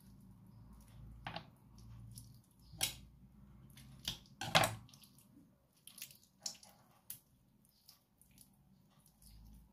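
Raw chicken wing meat squished and worked down the bone by hand, with sharp clicks and scrapes as a knife scrapes along the bone on a wooden cutting board; the loudest click comes about four and a half seconds in.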